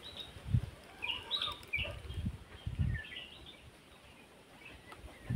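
Small birds chirping in short, quick calls, a few at a time then again near the end. A few low bumps on the microphone in the first half are louder than the birds.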